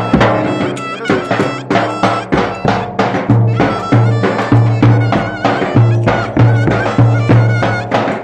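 Traditional Turkish folk dance music: a quick, steady drumbeat under a wavering, reedy melody line with a repeating low bass note.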